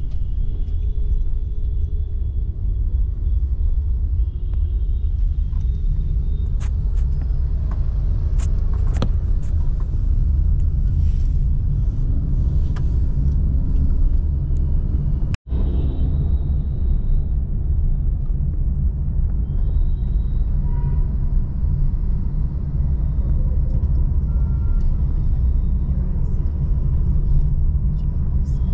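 Steady low road rumble of a moving car. It breaks off for an instant about halfway through, then carries on unchanged.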